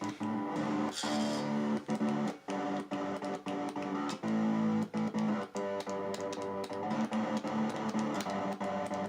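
Electric guitar playing held chords and notes, chopped into a stutter by a kill-switch button. The signal cuts off and snaps back on many times, irregularly.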